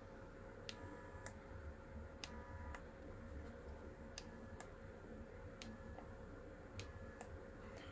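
Fire button of a vape box mod clicked in about five short pulses, each a press and a release click about half a second apart, with a faint steady whine while each pulse fires the new coils at 200 watts, a dry-fire to break them in and check for hot spots.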